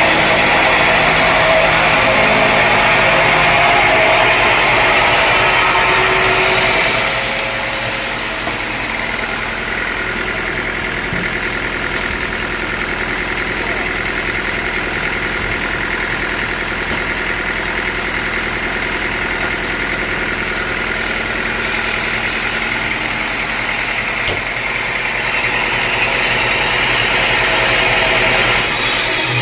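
Sawmill machinery running steadily with a constant hum. It is louder and brighter for the first several seconds, drops to a lower hum, and builds again near the end, as a saw takes up and eases off work on a teak log.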